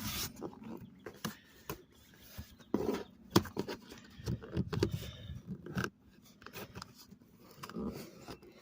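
Irregular clicks, taps and scrapes of hard plastic being handled and pried at, as someone tries to lever a cover off a remote-control toy T-Rex; the sharpest click comes about three and a half seconds in.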